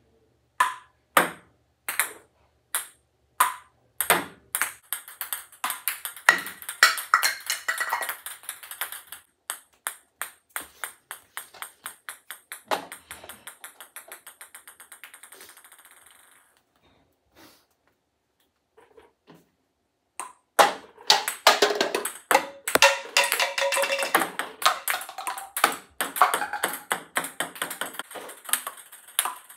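Ping-pong balls clicking sharply on hard surfaces, over and over. In the middle, one ball's bounces come faster and faster and fade as it comes to rest.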